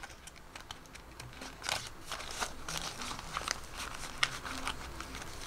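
Paper banknotes being handled and tucked into a cash envelope: soft, irregular rustling and crinkling of paper.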